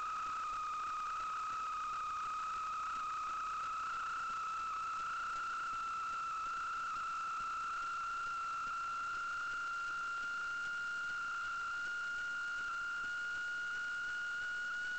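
Steady high-pitched electronic whine from the sewer inspection camera's recording equipment: one unbroken tone with a fainter overtone above it, creeping very slightly higher in pitch.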